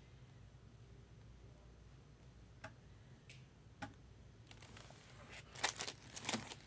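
Two faint clicks, then rustling and crinkling of trading-card packaging being handled, starting about two-thirds of the way in and growing louder near the end.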